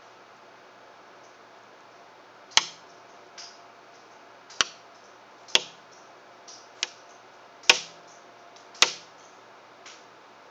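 A miniature repeating crossbow ring (chu-ko-nu style) shooting six tiny arrows in quick succession, each shot a sharp click about one to one and a half seconds apart. A few fainter ticks fall between the shots.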